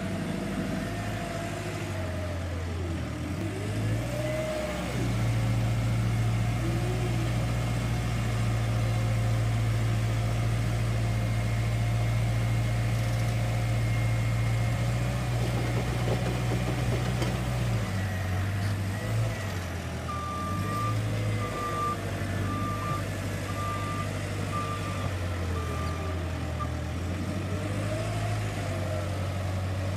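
JCB 531-70 telehandler's four-cylinder diesel engine working, revving up and holding high revs for about twelve seconds while the boom lifts a grab load, then dropping back and changing pitch as the machine manoeuvres. Towards the end a reversing alarm beeps about seven times, roughly once a second.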